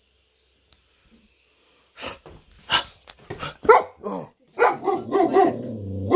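A young German Shepherd barking at its own reflection in a mirror: silent for about two seconds, then a rapid run of sharp barks that comes thicker near the end.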